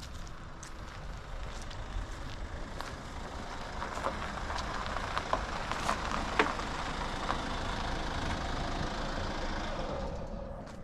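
A vehicle passing by, its sound building over a few seconds and fading away near the end, with walking footsteps.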